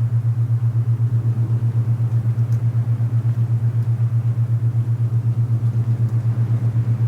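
Alpha-wave binaural beat: a loud low hum, beating evenly about eight times a second, over soft wind noise.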